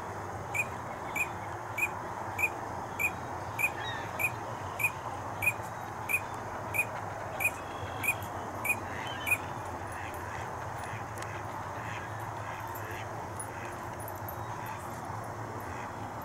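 Drake green-winged teal calling: about fifteen short, high whistled notes at an even pace, a little under two a second, stopping about nine seconds in. A steady background hum runs underneath.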